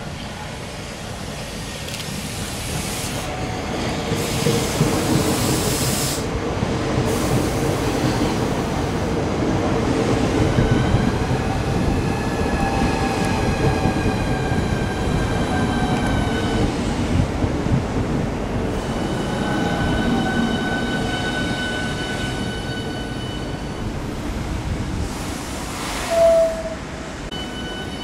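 Southeastern Class 395 Javelin electric train moving off from the platform, with a few bursts of air hiss. Its motor whine rises in pitch as it gathers speed, then holds steady. A short, loud single tone sounds near the end.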